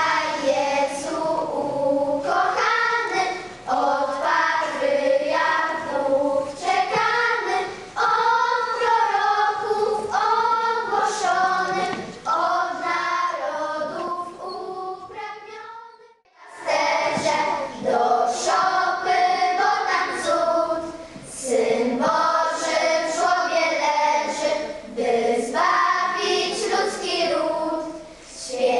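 Children's choir singing a Polish Christmas carol (kolęda), with a brief break in the singing about halfway through.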